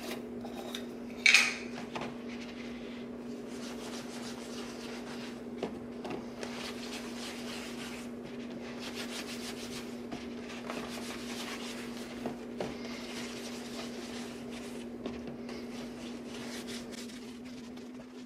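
Hands rubbing leather conditioner balm into a baseball glove: an uneven scuffing and brushing of palms and fingers over the leather, with a few small taps. There is a sharp clack about a second in, and a steady low hum throughout.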